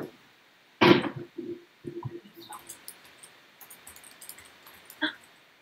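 Typing on a computer keyboard: scattered light key clicks, with one sharper click near the end. A short, louder burst of noise comes about a second in.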